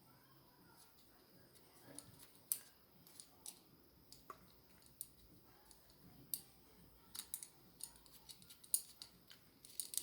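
Faint, scattered clicks and taps of small hard parts being handled, more frequent in the second half, as a scope mount is taken apart by hand.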